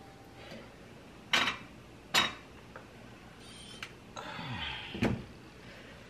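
A plastic slotted spoon knocks sharply against a nonstick wok twice, then a glass lid is slid into place and set down on the wok with a clink near the end.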